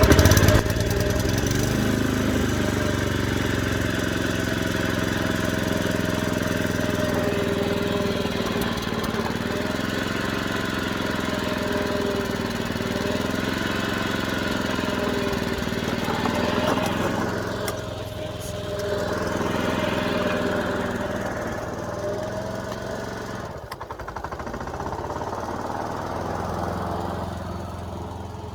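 Honda push mower's small four-stroke engine pull-started on choke, catching at once and running steadily on fresh gas, its speed wavering and dipping a couple of times later on. The owner judges the carburettor needs a little adjustment to get the engine's full power.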